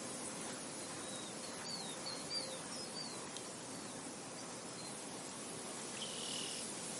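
Steady hiss of wind and insects, with a bird chirping a quick string of short high notes between about one and three and a half seconds in, and another brief high call near the end.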